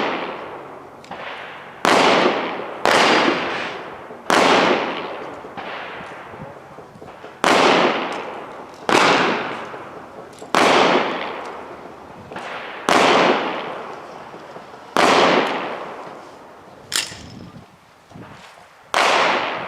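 Slow, deliberate firearm shots at an outdoor range: about ten loud gunshots one to three seconds apart, each ringing off with a long echo. One thinner, sharper crack comes about three quarters of the way through.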